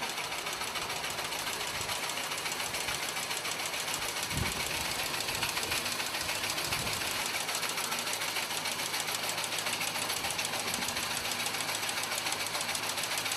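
Steady, fast mechanical rattling of machinery running on a ship's deck, with one low thump about four seconds in.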